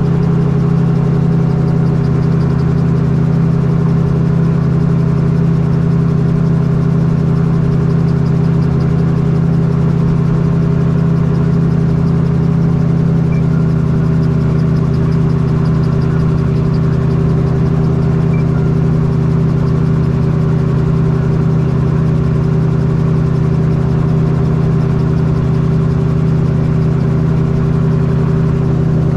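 Magni Gyro M16 gyrocopter's pusher-propeller engine running steadily in flight, heard from the open cockpit as a loud, even drone with no change in pitch.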